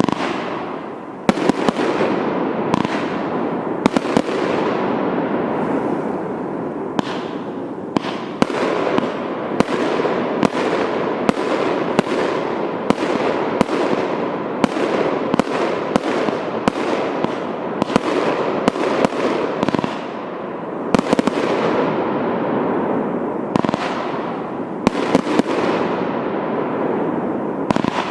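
A 73-shot consumer fireworks cake of 1-inch and 1.2-inch calibre firing shot after shot, roughly one to two bangs a second, over a continuous crackling hiss from the bursting effects. The firing dips briefly about two-thirds of the way through, then several shots come close together near the end.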